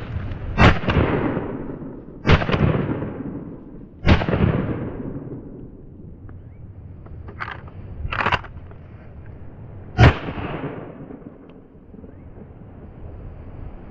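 Benelli shotgun fired at flying ducks: three loud shots in the first four seconds and one more about ten seconds in, each trailing a long rolling echo. Two shorter, lighter cracks come around seven and eight seconds in.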